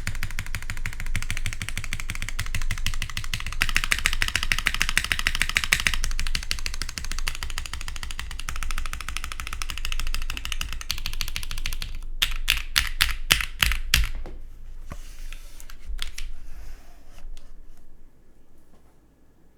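Fast typing on a Saevus Duality TKL mechanical keyboard with lubed, filmed pre-retool Cherry MX Black linear switches, an aluminium plate and GMK keycaps. Dense continuous keystrokes give way, about twelve seconds in, to a run of about a dozen separate, evenly spaced key presses, then a few last strokes before the typing stops near the end.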